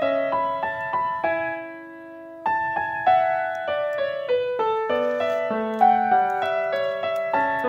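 Background piano music: a gentle melody of single notes over chords, with a held chord about halfway through before the melody resumes.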